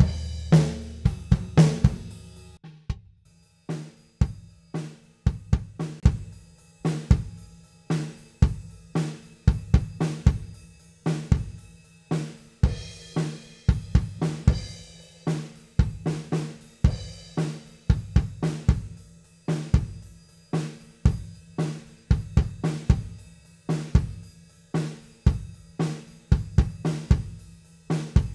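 Recorded acoustic drum kit playing a steady groove of kick, snare and hi-hat with cymbals, run through the Acustica Audio ARCTIC compressor/saturator with several dB of gain reduction. A big opening hit rings out over the first couple of seconds.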